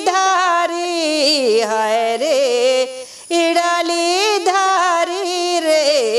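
A woman singing a Rana Tharu teej folk song unaccompanied: one voice holding long, wavering, ornamented notes, with a short breath pause about three seconds in.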